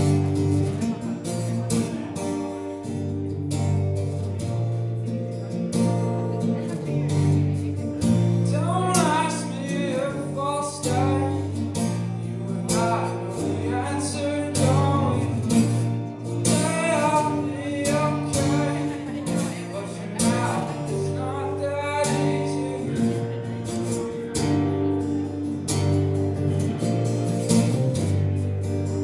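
Live band music: acoustic and electric guitars playing, with a voice singing from about eight seconds in.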